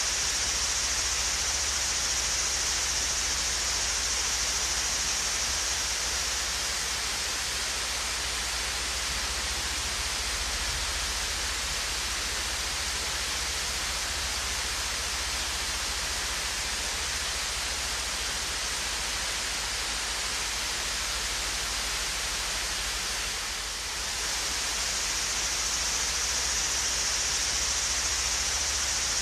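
Swayze Falls, a gentle waterfall, pouring in a steady rushing hiss that dips briefly about 24 seconds in.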